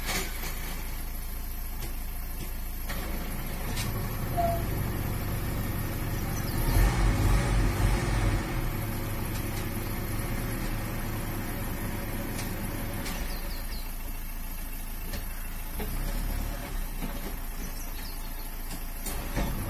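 Diesel tipper lorry's engine running while its hydraulic hoist raises the loaded dump bed to tip sand. The engine note steps up a few seconds in, is loudest with uneven pulsing about seven to eight seconds in, then eases back about thirteen seconds in.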